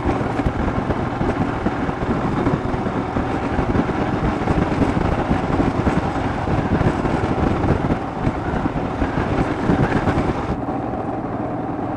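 Royal Enfield Himalayan's 411 cc single-cylinder engine running steadily while the motorcycle is ridden, mixed with heavy wind noise on the handlebar-mounted action camera's microphone.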